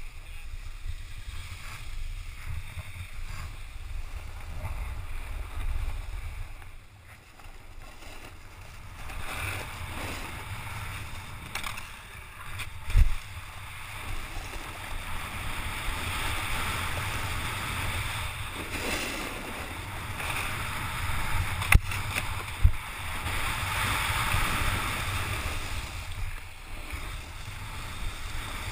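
Edges scraping and hissing over groomed snow during a downhill run, over a steady low rumble of wind on the microphone. The scraping grows louder from about a third of the way in. There is a sharp thump near the middle and two more close together later.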